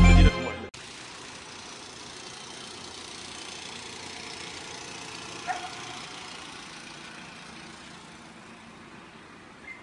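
Music cuts off abruptly just under a second in, giving way to a steady hum of street traffic noise. One short, sharp sound stands out briefly about five and a half seconds in.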